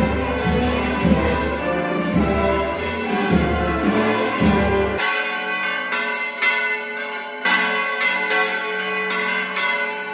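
Church tower bells of the Puríssima Concepció ringing a peal: many bells striking in quick succession, their tones overlapping. Low band music plays under them for the first half and drops away suddenly about halfway through.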